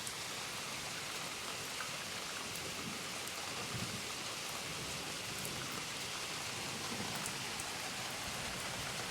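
Steady rain falling during a thunderstorm, a continuous even hiss with fine drop ticks.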